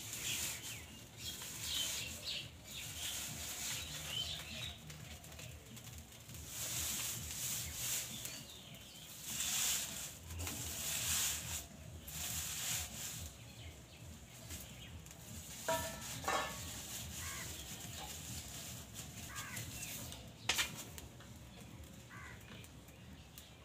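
Straw fire burning in a clay stove under an iron wok, with rustling and crackling as straw is pushed into it. A few clinks of metal utensils, including a short ring about two-thirds through and a sharp knock near the end.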